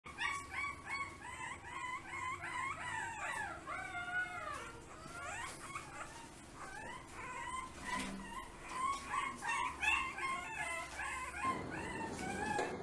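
Chihuahua puppy whimpering and yelping: a long run of high-pitched whines and cries that bend up and down, with a few falling, howl-like cries about four seconds in.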